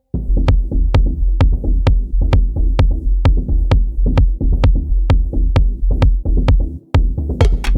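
Electronic beat played on a Native Instruments Maschine groovebox: a heavy sustained bass under a steady pattern of sharp ticks about twice a second. It cuts out briefly near the end and comes back with denser hits.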